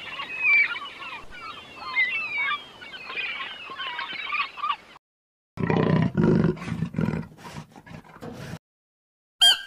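Birds calling: many short rising and falling chirps for about five seconds. Then, after a brief pause, a big cat roaring low and loud for about three seconds, followed by one short high call near the end.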